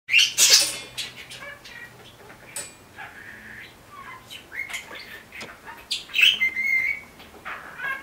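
Budgerigar chirping and chattering in short, varied calls, with one longer whistled note a little after the middle. A loud flutter of wings near the start.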